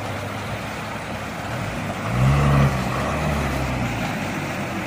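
Floodwater rushing steadily across a road. About two seconds in, a vehicle engine revs up, then holds at a steady run.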